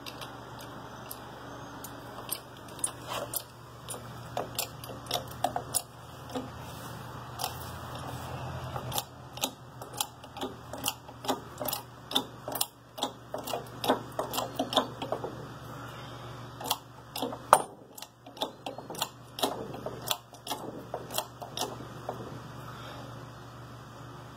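20-ton stubby hydraulic bottle jack being pumped by hand in a homemade truss-plate press: a run of sharp, irregular metallic clicks and ticks from the pump handle, several a second. The clicks start about two seconds in and stop near the end.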